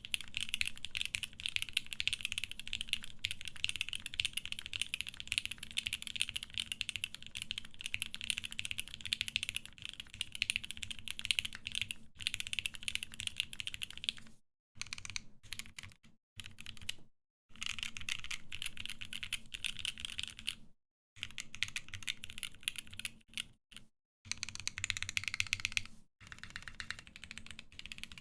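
Geonworks F1-8X custom mechanical keyboard with a Viton O-ring mount, typed on quickly and continuously in a sound test. The key presses break off briefly several times in the second half.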